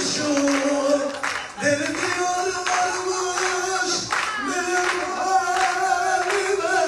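A voice singing a song in long, wavering held notes, with a crowd clapping along.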